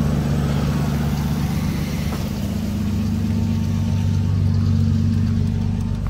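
Ford Ranger pickup's engine idling steadily with a low hum.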